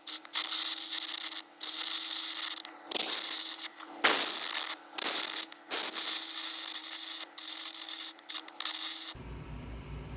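Air carbon-arc gouging cracks out of steel bosses: a loud, harsh hiss in runs of a second or two with short breaks between. Near the end it cuts to a quieter low rumble.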